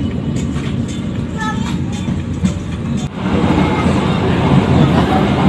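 Running noise of a moving passenger train heard from inside the coach: a steady low rumble of wheels on rail with scattered clicks, growing louder and fuller about three seconds in.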